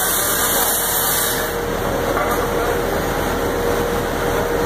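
Ready-mix concrete truck running steadily at close range, a dense mechanical noise with a faint steady whine on top.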